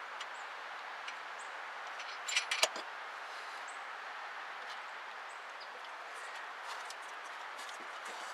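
Steady outdoor background noise with a few light clicks, and a quick run of louder clicks about two and a half seconds in, typical of parts or tools being handled.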